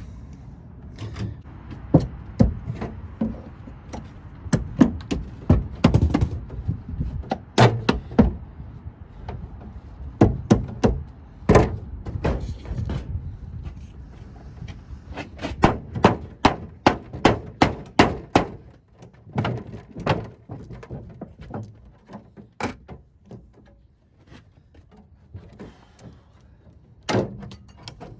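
Irregular knocking and banging, dozens of sharp strikes with short pauses between, growing sparser toward the end: hand-tool work on the sheet-metal plenum of an air-conditioning unit while it is being pried loose from roof cement and caulking.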